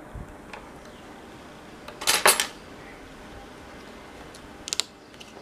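Small hard clicks and a short clatter of plastic and metal parts as the LCD inverter's power cable connector on the Dell Latitude E6500 screen is handled and plugged in. The loudest rattle comes about two seconds in, with a couple of sharp clicks near the end.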